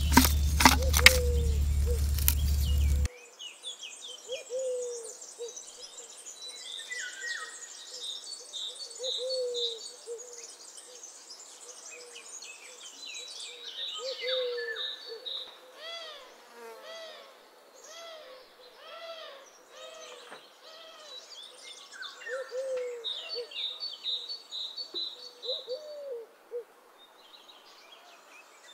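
Birds calling across an open rice field: a low hooting note repeated every second or two, with many high chirps and trills over it. For the first three seconds a loud rushing noise with a few sharp knocks covers everything, then cuts off.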